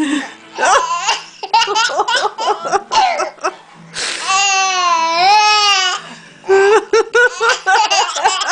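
Baby girl laughing in short, breathy giggles, with one long high squeal of about two seconds near the middle. Short, sharp clicks fall between the laughs.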